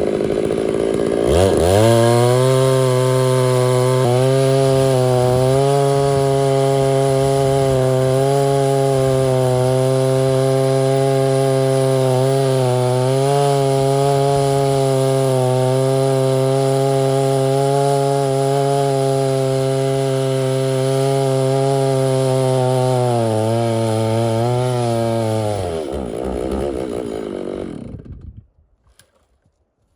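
Two-stroke chainsaw revving up about a second in and running at steady full throttle, ripping through a white oak log. Near the end it drops back to idle and shuts off.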